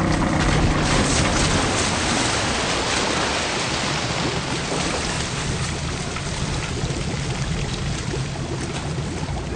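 A burning car plunging into lake water: a big splash in the first couple of seconds, then a steady rush of churning water that slowly fades.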